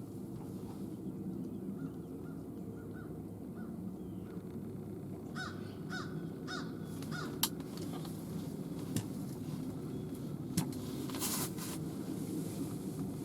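Crows cawing in a series of short calls, faint at first and clearer about five seconds in, over a steady low rumble. A few sharp clicks are heard in between.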